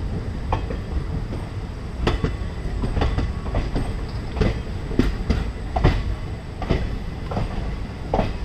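Train rolling slowly, heard from the locomotive: a steady low rumble with about a dozen irregular sharp clacks of the wheels over rail joints.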